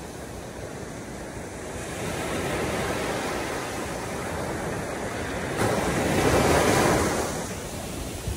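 Ocean surf: waves washing in as a steady rush, with one wave swelling louder about six seconds in and then easing off.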